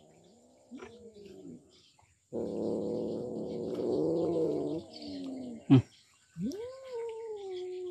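A cat calling in long, drawn-out meows: a short wavering call, then a long call of about three seconds, then one that rises and slowly sinks. A single sharp click comes just before the last call.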